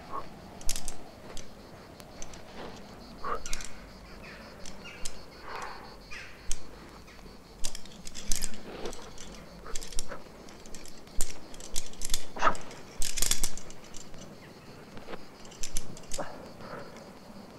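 A rock climber on the move: quickdraws and carabiners clinking on his harness, with hands and climbing shoes scuffing and tapping the rock, in irregular short sounds, several in a row at times.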